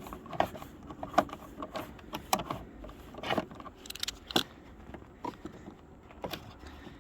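Irregular clicks, knocks and rattles of hands working a 1990 Dodge Grand Caravan taillight assembly loose from the body.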